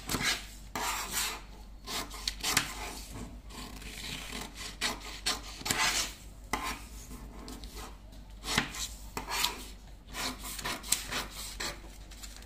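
Scissors cutting through a sheet of paper pattern: an irregular run of snips and scraping strokes, mixed with the rustle of the paper being turned and handled on a wooden tabletop.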